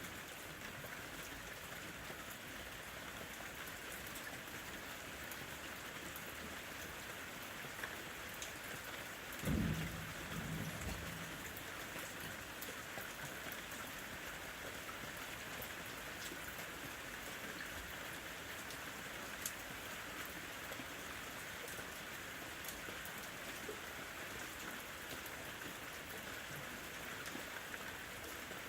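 Steady rain falling, an even hiss with scattered ticks of single drops. About ten seconds in, a brief low rumble stands out as the loudest moment.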